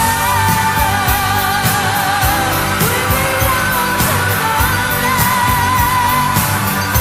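Late-1970s rock song: a woman's voice sings long held notes with vibrato over a full band with a steady beat.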